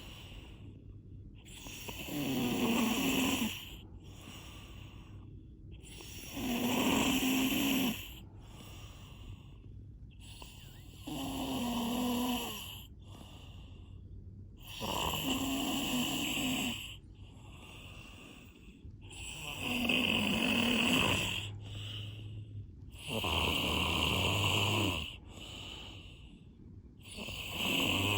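Snoring: a loud snore about every four seconds, seven in all, with quieter breathing between them.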